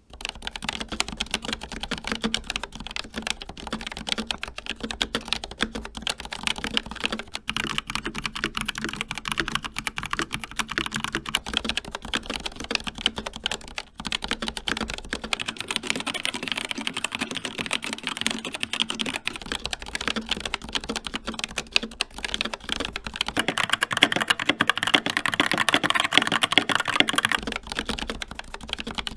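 Continuous fast typing on four mechanical keyboards in turn, each change coming about every eight seconds. First an Asus Claymore II with ROG RX Red switches, then an Asus Flare II Animate with ROG NX Red switches, then an Xtrfy K4 with Kailh Red switches. From about 23 seconds in comes a Skyloong GK61 with Gateron Optical Brown switches, whose clacking is louder and brighter.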